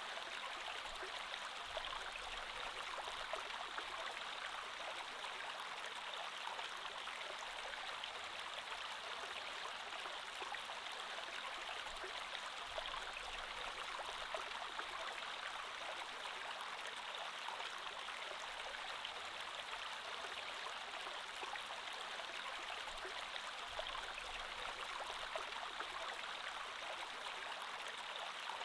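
Creek water flowing steadily, an even rushing with small splashes and trickles throughout.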